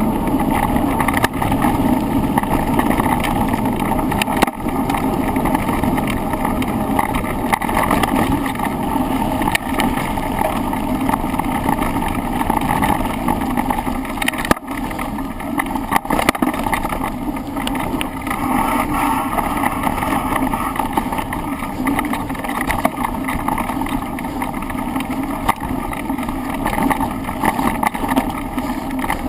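Continuous riding noise picked up by a handlebar-mounted camera on a downhill run: steady wind rush and rattle, with a few brief knocks.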